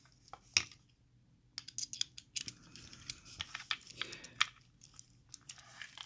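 Hands working on a round Master Lock padlock: irregular light metal clicks and scraping as its small parts are handled and fiddled with. There is one sharp click about half a second in, a brief lull, then a busier run of clicks and scrapes from about one and a half seconds in.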